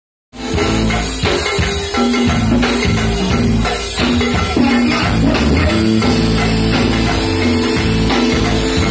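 Live band playing loudly, with drum kit and congas; the music cuts in just after the start.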